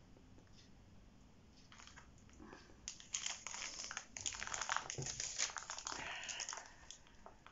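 Plastic packaging crinkling and rustling as it is handled, a dense run of small crackles starting about three seconds in and dying away near the end.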